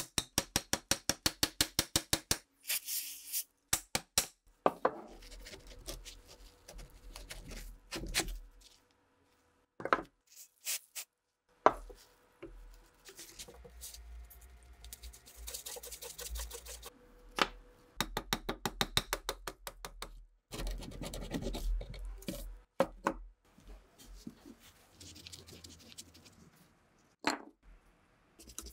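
Hand tools working on a rusted Winchester 1895 rifle: a fast run of light taps, about eight a second, for the first two seconds, then single knocks and stretches of metal scraping, including a screwdriver turning in a rusted screw in the action, broken up by short silences.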